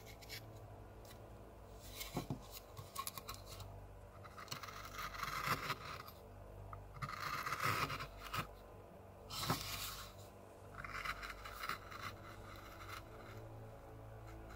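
Hand carving gouge cutting into cottonwood bark: a series of short scraping, crunching strokes a second or two apart as chips are pared away.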